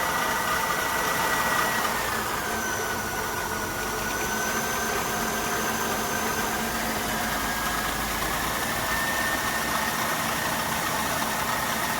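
2000 Honda Odyssey's V6 engine running under light throttle, with a steady high whine whose pitch drops about two seconds in and then slowly climbs back. This is the noise on acceleration that the owner traced to a failing water pump.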